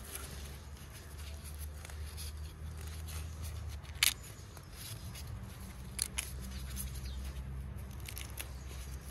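Oyster mushrooms being pulled and snapped off a log by gloved hands: a few sharp snaps and clicks, the loudest about four seconds in, with handling rustle over a steady low rumble.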